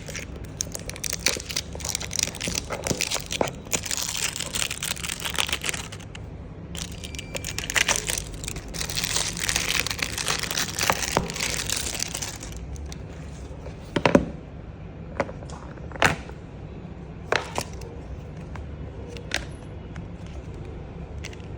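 Thin plastic packaging film crinkling and peeling in two long stretches, then four separate sharp clicks.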